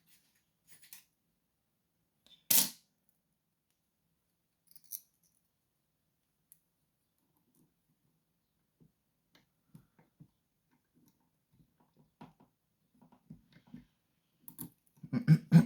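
Small metal lockpicking tools (tension wrenches) handled and clinking. One sharp metallic click comes about two and a half seconds in, then a few faint ticks, with more handling noise near the end.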